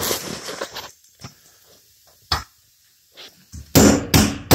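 Hammer striking a punch held on a rivet in a school bus's metal side panel, knocking out the rivet's hard metal center core so the head can be drilled off. A few light taps, then three hard metallic blows in quick succession near the end.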